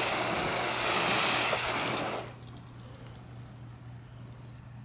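Water spray hissing steadily onto a freshly waxed car hood, cut off about two seconds in. Faint dripping and trickling follow as the water beads and runs off the waxed paint.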